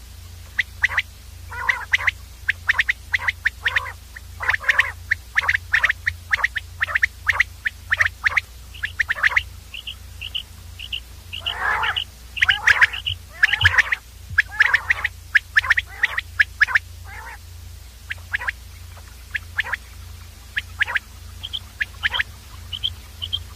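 Common quail calling: rapid strings of short, sharp call notes, several a second, repeated again and again and loudest around the middle.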